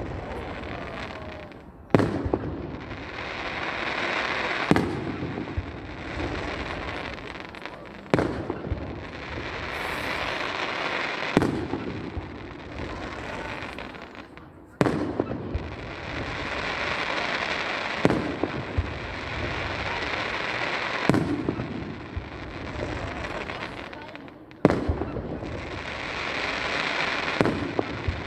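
Fireworks display: aerial shells bursting with sharp bangs about every three seconds, each bang followed by a few seconds of crackling noise that fades before the next.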